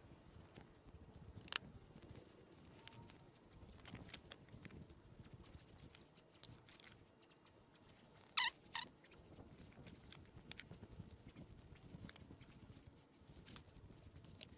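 Faint, scattered clicks and knocks of composite garden-bed boards and plastic snap-lock brackets being handled and set down, with a sharp double clack about eight seconds in.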